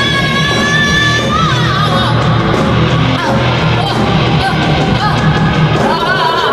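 Loud punk rock music: a band with electric guitar playing, with yelled, sung vocals coming in after the first second or so.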